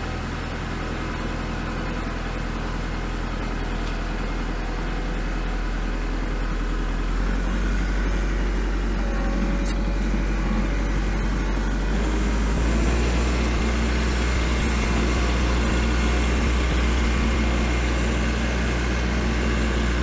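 Kubota L4701 tractor's diesel engine running steadily as the tractor drives out through deep snow, in low gear while the engine is still warming up. The engine sound grows fuller and a little louder about a third of the way in and again past the middle.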